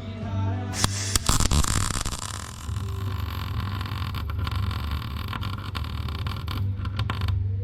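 Wire-feed welder arc crackling steadily over a low hum, starting about a second in.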